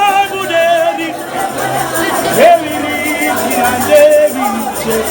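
Gospel worship music: a voice singing in wavering, drawn-out phrases over sustained bass notes.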